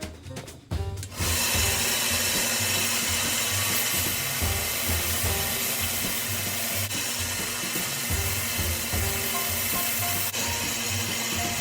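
A power tool running steadily, a dense abrasive noise that starts about a second in, with background music underneath.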